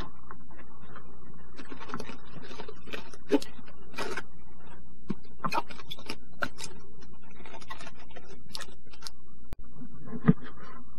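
Iceberg lettuce leaves crackling and snapping in irregular bursts as they are torn off the head by hand, over a steady low hum. Near the end a knife cuts through a tomato with one sharp knock on the plastic cutting board.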